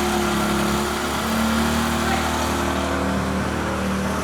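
An engine running steadily, a low hum with a few held tones.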